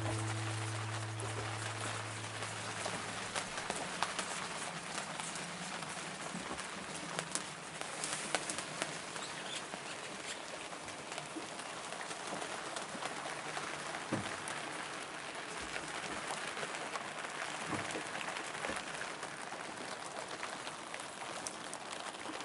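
Steady rain with many small sharp drop ticks. A music track fades out over the first few seconds.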